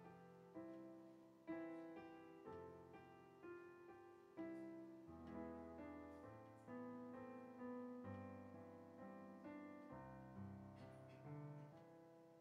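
Soft, slow piano music: chords and single notes struck every half second to a second, each left to ring and fade.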